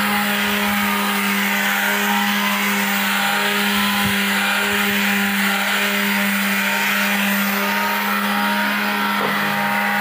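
A motor running steadily: a constant hum with an even hiss over it, unchanging throughout.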